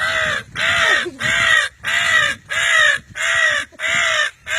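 A person imitating a crow's call: an even, rapid run of about eight loud, harsh caws, roughly one every half second, given as a call to draw crows in.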